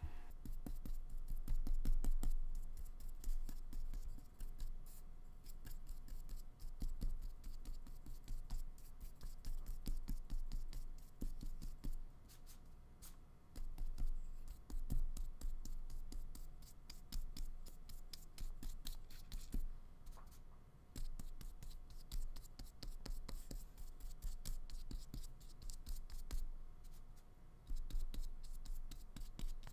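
Paintbrush working acrylic paint on a paper palette, a continuous run of soft, scratchy brush strokes and dabs. Near the end the brush moves to the painting on paper.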